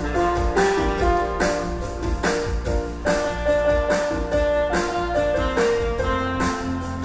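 Erhu playing a held, flowing melody over a keyboard backing with a steady bass and drum beat.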